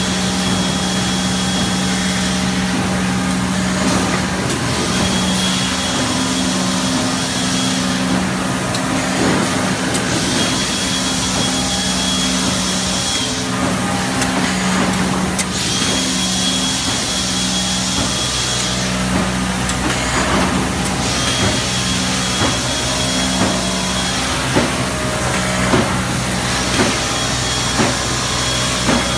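Plastics thermoforming plant machinery running: a steady hum, with a hiss and a high whistle-like tone repeating about every five seconds as the machines cycle. In the second half, knocks and clicks come roughly once a second.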